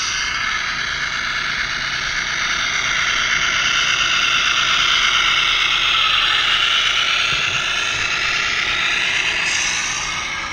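Radio-controlled scale semi truck driving along a track, its electric motor and gearbox whining continuously, the pitch drifting up and down with the throttle.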